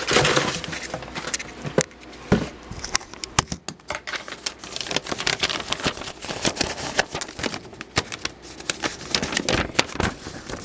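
Crumpled packing paper rustling and crackling as it is handled and pulled from a cardboard shipping box, in a dense run of irregular crinkles that is loudest right at the start.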